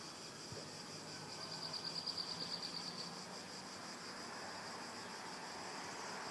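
Cicadas singing in the trees: a high, rapidly pulsing buzz that swells louder about a second and a half in and eases back about three seconds in, over a faint steady hiss.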